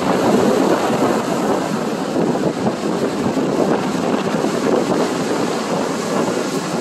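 Rough lake waves breaking and washing up a pebble beach, with strong wind buffeting the microphone; a steady, loud rushing throughout.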